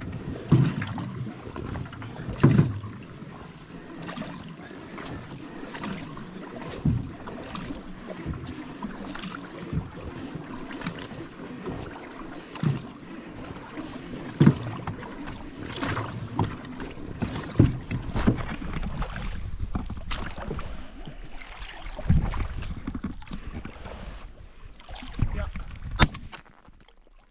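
Canoe being paddled: irregular paddle strokes in the water and paddle knocks against the hull, every second or two, over a steady low wind rumble on the microphone. A sharper knock comes near the end.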